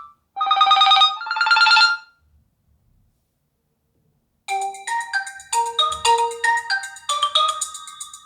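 Realme GT5 Pro smartphone ringtones. A short chime of stacked tones sounds twice, about half a second in and again about a second later. After a pause of about two seconds, another ringtone starts about four and a half seconds in: a quick melody of many short, bright notes.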